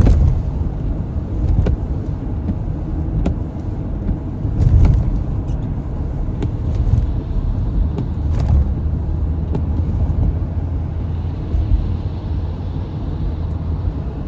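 Car on a snowy, slushy highway, heard from inside the cabin: a steady low road and engine rumble, with a few short knocks now and then.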